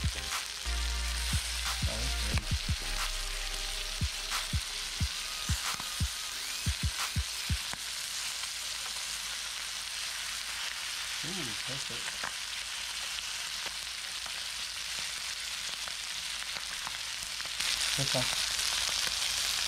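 Breaded bluegill fillets sizzling in hot oil in a nonstick skillet, a steady hiss. Through the first several seconds, tongs click and tap against the pan as the fillets are turned. The sizzle grows louder near the end.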